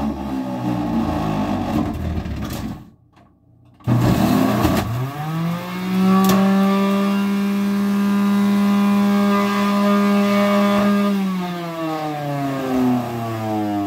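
Electric juicer motor juicing lemons. Its whine sinks in pitch, stops briefly about three seconds in, then spins back up to a steady high pitch, and sinks again near the end.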